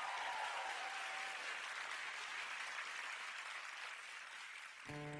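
Studio audience applauding, the clapping slowly dying down; near the end the first notes of the song's instrumental intro start.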